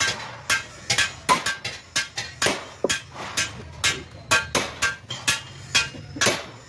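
Hand hammer repeatedly tapping a metal punch to punch a decorative pattern into aluminium sheet, about two to three strikes a second, each with a short metallic ring.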